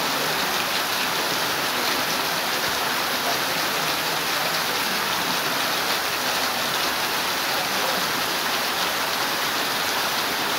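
Torrential rain falling steadily on a wet road: a dense, even hiss with no let-up.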